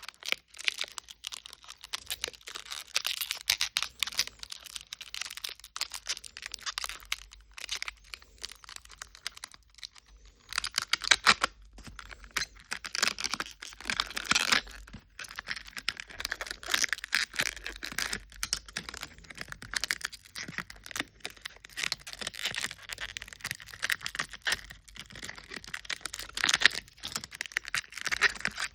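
Small plastic packaging bags crinkling and tearing in the hands, with many quick light clicks as small plastic toy pieces are handled.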